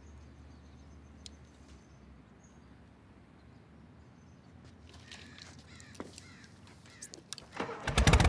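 Crows cawing over quiet outdoor ambience, then near the end a motorcycle engine starts up loudly with a rapid firing pulse.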